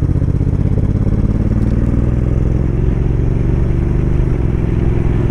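Motorcycle engine running at a steady speed while riding, its note shifting slightly about four seconds in.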